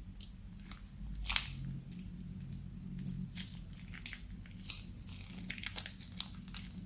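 A thin plastic bag full of blue slime being squeezed, burst open and peeled off the slime: irregular sharp crackles and crinkles of the plastic film, with the loudest crackle about a second and a half in.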